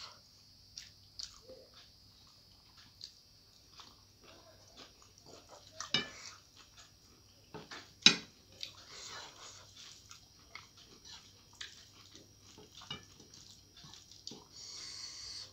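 Eating with the hand: wet, sticky sounds of fingers mixing rice and curry on a plate, along with chewing and mouth sounds as scattered small clicks and smacks. A sharp click about eight seconds in is the loudest sound.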